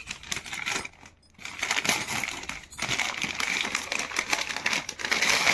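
Shiny foil gift-wrapping paper and tissue paper crinkling and crackling in a person's hands as a present is unwrapped, a dense crackle with a short pause about a second in.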